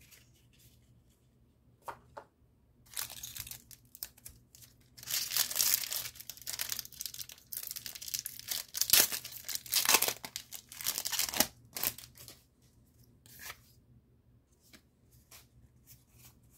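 Foil wrapper of a Pokémon TCG Lost Origin booster pack crinkling and tearing as it is opened by hand: a run of rips and rustles lasting several seconds. A few faint clicks follow near the end.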